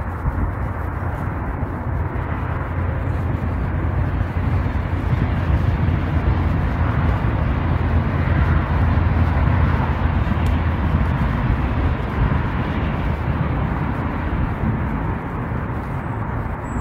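Steady outdoor background noise: a low rumble with hiss, swelling a little in the middle, with no distinct events.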